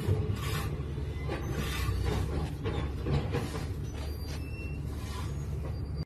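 Steady low engine and road noise inside a moving vehicle's cabin, with faint light rattles over it.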